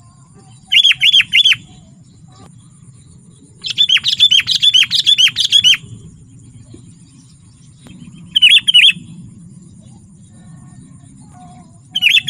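Sooty-headed bulbul calling in bursts of quick, chattering notes: a short phrase about a second in, a longer run of about ten notes around four to six seconds, a short phrase near nine seconds, and another starting at the very end.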